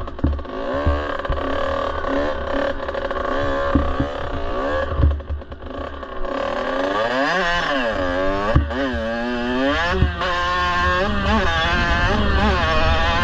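Kawasaki KX65's two-stroke single-cylinder engine being ridden along a dirt trail, its pitch rising and falling with the throttle. It eases off about five seconds in, then revs up and down repeatedly, with low rumble and thumps underneath.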